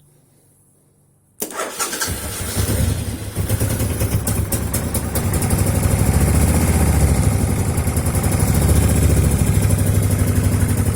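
Suzuki Intruder 1500 LC V-twin motorcycle engine starting about a second and a half in and running, taking throttle. It fires up without choke after its decompression valves have been adjusted, having sat for years.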